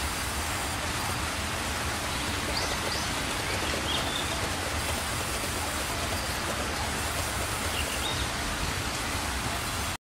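Band saw resawing wooden planks: a steady, unbroken noise of the blade running and cutting as boards are fed through. A few faint short chirps come through a few seconds in and again near the end.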